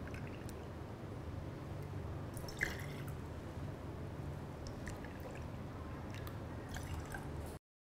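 Black tea poured in a thin stream from a plastic pitcher into a stainless steel jigger, trickling and dripping, with a sharp click about two and a half seconds in. A steady low hum runs underneath.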